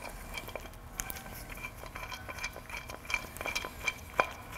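Irregular light metallic clicks and clinks as a quarter-inch Allen key turns the bearing-support bolts out of an aluminium differential cover, backing them out all the way.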